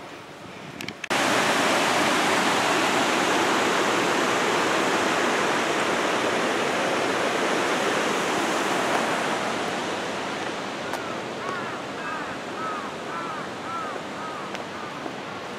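Steady rushing noise, as of flowing water, starting abruptly about a second in and easing after about nine seconds. Near the end a bird calls repeatedly in short arching chirps.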